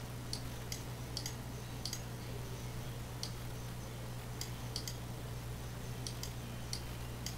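Computer mouse clicks, sharp and irregularly spaced, some in quick pairs, over a steady low hum.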